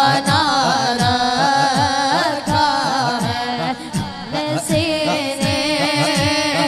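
A boy singing a naat into a handheld microphone, drawing out a long, ornamented melodic line without clear words, over a steady beat of low drum strokes, about three a second.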